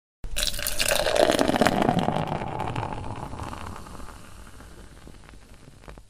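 Beer being poured. It starts suddenly, is loudest for the first two seconds or so, then fades away steadily and cuts off near the end.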